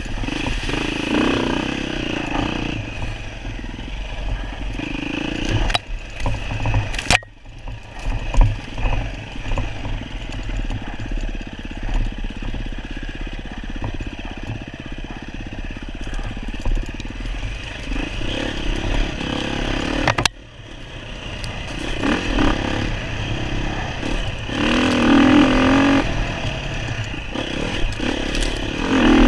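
Off-road dirt bike engine running, rising and falling with the throttle, with clatter from the bike over rough ground. The sound drops out sharply and briefly twice.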